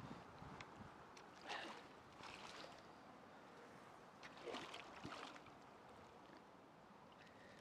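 Near silence, with a few faint, brief splashes and laps of water at the edge of a pond in the first five seconds, as ripples spread out across the surface.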